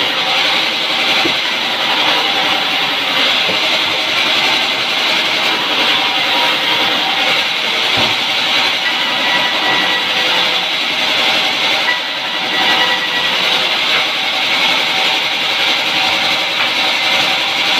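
Sawmill band saw running and ripping a wooden plank into boards: a loud, steady hissing whir with several steady ringing tones from the blade.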